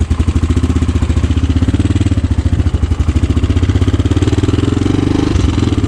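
Motorcycle engine idling steadily just after being kick-started, with a rapid, even exhaust pulse.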